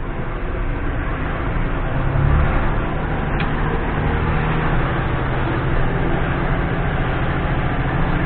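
Loaded concrete mixer truck's diesel engine running steadily with a low drone that grows stronger about two seconds in, as the truck climbs a steep road. A brief faint tick a little over three seconds in.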